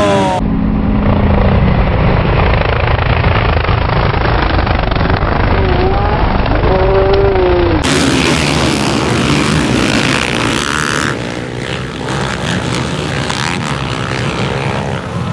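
A pack of motocross bikes racing at full throttle, a dense, loud engine rumble with individual engines revving up and down in pitch. The sound changes abruptly twice, about eight and eleven seconds in.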